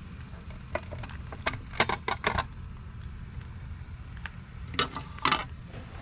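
Clicks and clatter of the inner cover being pulled out of an outdoor AC disconnect box: a quick cluster of knocks about two seconds in and two more near the end, over a steady low hum.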